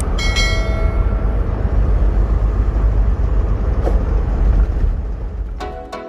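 Heavy truck on the road: a steady low rumble of engine and road noise, with a click and a brief ringing tone just after the start and another click about four seconds in.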